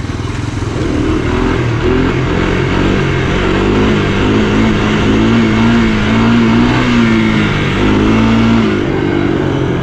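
Engine of a giant three-wheeler running and revving: the pitch rises about a second in, wavers while held up, and eases back near the end.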